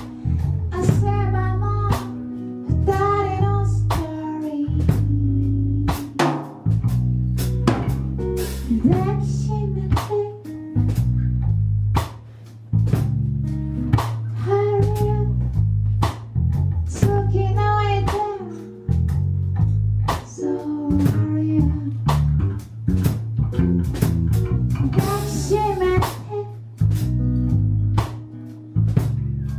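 A band song with guitar, drum kit and bass on a steady beat, with a sung melody over it in phrases.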